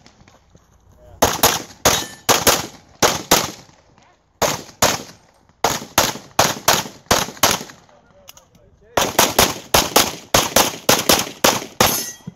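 Handgun shots fired in rapid strings, several shots in quick succession each time, with short pauses between strings. This is the firing pattern of a practical-shooting stage: shots on each target, then moving to the next shooting position.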